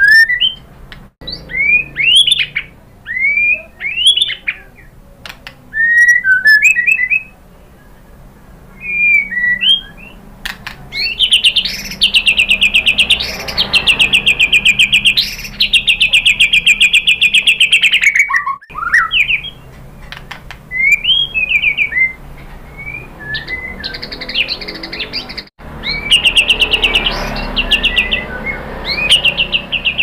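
White-rumped shama singing: a string of short, loud whistled notes that swoop up and down, then a long fast rattling trill lasting several seconds. More varied notes follow, and another rattling trill comes near the end.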